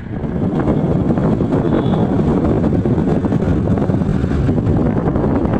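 Loud, steady wind buffeting a phone's microphone on a moving motorcycle, mixed with the bike's engine and road noise. It swells slightly in the first half second, then holds steady.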